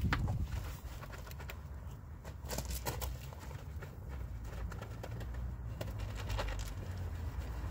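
Wool wash mitt scrubbing a foam-covered alloy wheel: soft wet rubbing strokes with scattered light clicks, over a steady low rumble.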